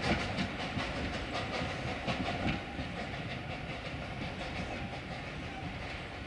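Narrow-gauge museum train's carriages rolling away over the track, wheels clicking steadily over the rail joints above a low rumble. The clicking fades after about two and a half seconds as the train draws off.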